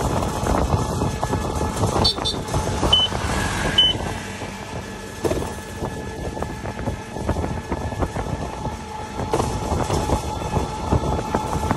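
Wind buffeting and road noise while riding an e-bike, with a few short high electronic beeps between about two and four seconds in.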